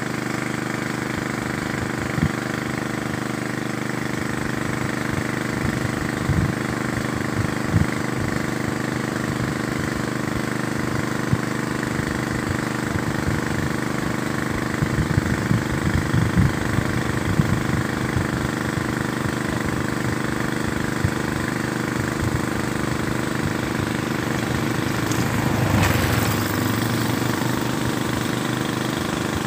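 A small engine running at a steady speed, with a few short knocks over it and a brief swell of noise near the end.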